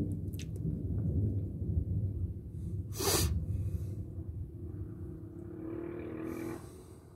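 Distant thunder, a low rumble that fades over several seconds. About three seconds in comes a short, sharp hissing burst, and near the end a brief pitched humming sound.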